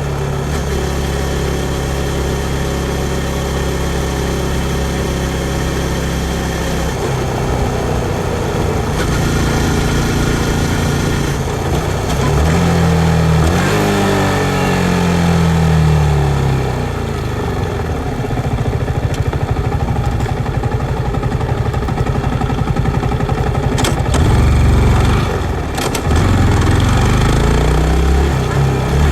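Yamaha MT-15's 155 cc single-cylinder engine running steadily at low revs, then accelerating: its pitch rises and drops back with each gear change, several times over, and rises again near the end.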